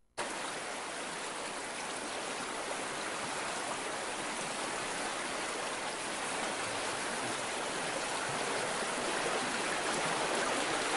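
Steady rushing sound like running water, starting suddenly and slowly growing louder, with no tune or pitched notes in it.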